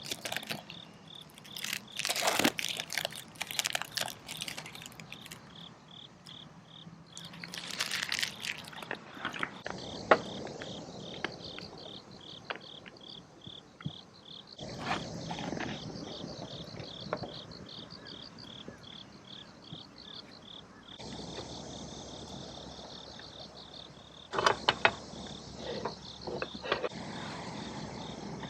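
Insects chirping outdoors in a fast, even pulsing rhythm. Bursts of crunching and clicking come in the first few seconds, around eight seconds in, and again near the end.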